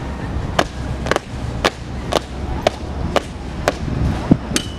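Hard-soled shoes of a flag escort marching in step on a concrete court: crisp footfalls in unison, about two a second.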